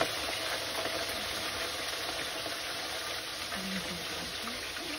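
Fish frying in a pot of hot fat: a steady, even sizzle.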